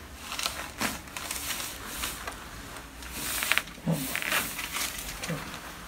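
Sounds of a chiropractic adjustment: rustling and shifting of the patient on the treatment table, a few short clicks, and brief grunts.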